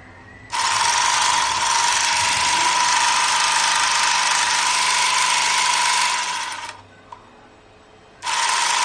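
Handheld electric bag-closing sewing machine running with no sack in it, stitching off a chain of thread: a loud steady motor and stitching noise for about six seconds, which stops and starts again near the end.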